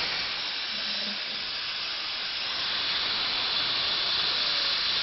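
Steady hiss of carbon monoxide gas being fed in to kill a gopher.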